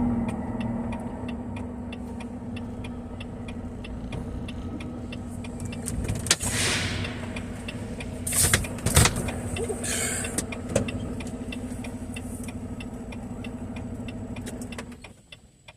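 Semi truck's diesel engine idling with a steady hum and a regular light ticking, with several short hissing bursts partway through. The engine shuts off near the end.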